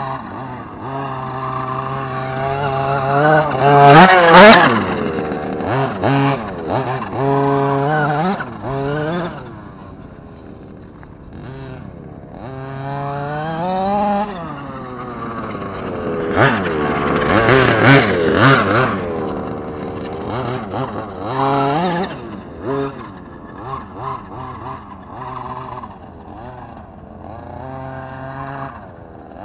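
Redcat Rampage MT V3 RC monster truck's two-stroke gas engine revving up and down as it is driven, its pitch climbing and falling over and over. It is loudest about four seconds in and again from about sixteen to nineteen seconds in.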